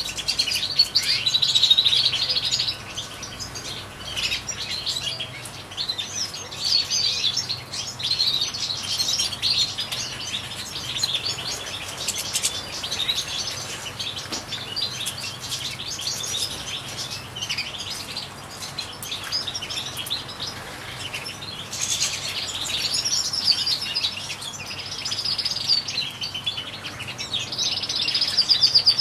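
European goldfinches singing, a continual liquid twitter of quick chirps, ending in a fast trill.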